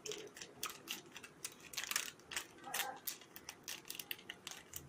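Crinkling and crackling of a plastic snack wrapper being handled and opened, in many quick irregular crackles.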